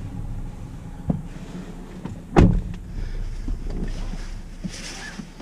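Someone getting into a car's driver's seat, the door shutting with one heavy thump about two and a half seconds in, with small clicks and clothing rustle around it over a steady low hum.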